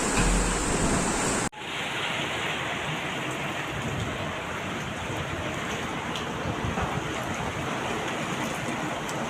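Steady rushing noise of cyclone wind and water. About a second and a half in, an abrupt cut leads to a slightly quieter stretch of the same kind of storm noise.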